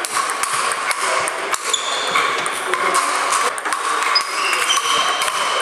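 Table tennis rally played with sandpaper bats: the ball is repeatedly clicked off the bats and bounced on the table in quick, irregular knocks, over the steady background noise of a busy sports hall.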